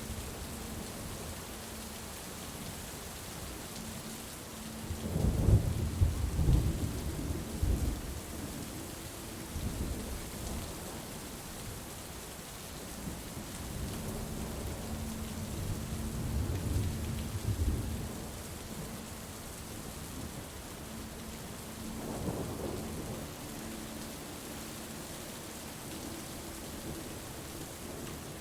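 Steady rain falling, with low rolls of thunder: a loud one about five seconds in, a longer softer one around the middle, and a short one near the end.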